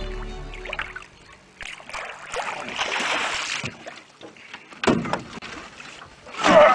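Water splashing and slapping as a big catfish thrashes at the boat side and is scooped into a landing net, with knocks against the boat. The loudest splash and clatter comes near the end.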